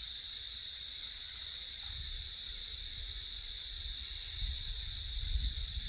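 Steady high-pitched trilling of an insect chorus, with a quicker repeating chirp layered above it. A low rumble on the microphone builds from about two seconds in.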